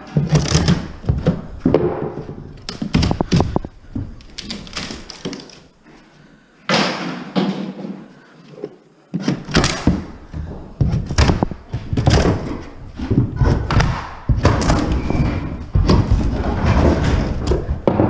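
Hammer blows knocking a wooden trim board loose from the edge of a staircase against drywall: a run of irregular thuds and knocks, with a quieter pause of a few seconds in the middle.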